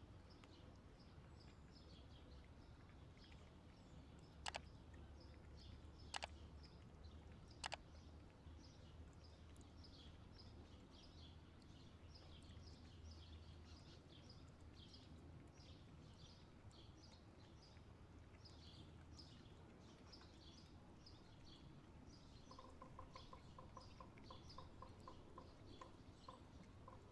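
Faint outdoor quiet with small birds chirping over and over in the background. Three sharp clicks come in the first eight seconds, and a quick run of short pips starts near the end.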